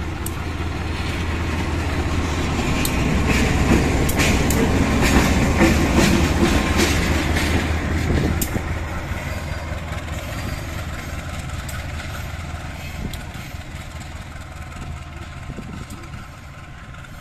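CC 201 diesel-electric locomotive running light past at shunting speed. The engine's low steady hum swells to a peak about five seconds in, with sharp clicks from the wheels over the rail joints as it goes by, then fades as it moves away.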